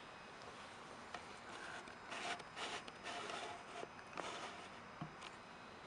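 Faint rustling and scraping handling noise over quiet room tone, starting about two seconds in and lasting a couple of seconds, followed by a single click.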